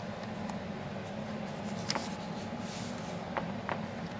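Cardstock pages of a handmade scrapbook mini album being handled and turned: a few light taps and clicks and a brief paper rustle, over a steady low hum.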